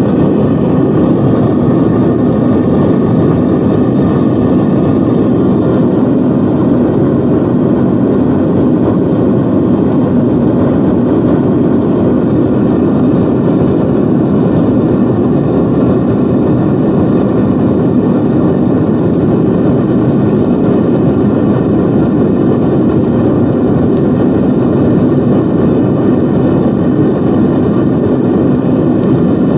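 Propane melting furnace running: a steady, loud burner rush with most of its weight low, unchanging throughout. The furnace is heating a clay-graphite crucible to melt down metal stuck inside it.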